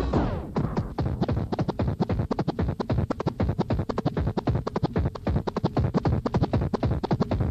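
Electronic techno music: a falling sweep, then a rapid stuttering break of short chopped hits repeating several times a second.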